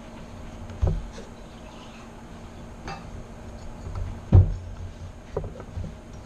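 Scattered clicks and knocks of hard parts being handled, with one loud thump about four and a half seconds in, over a steady low hum.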